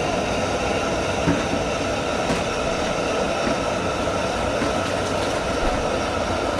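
Gas stove burner running with a blue flame under a large pot: a steady rushing noise with a few faint ticks.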